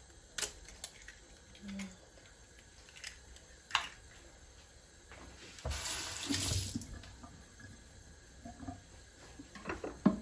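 A few sharp taps and clicks of an eggshell being cracked and emptied into a bowl, then a kitchen tap running in a short gush for about a second, around six seconds in. A few light clicks near the end.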